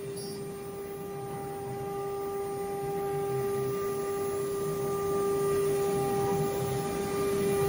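UG-1325 woodworking CNC router engraving an MDF sheet: the spindle runs with a steady whine while the bit cutting the board adds a rough, uneven noise beneath it, getting gradually louder.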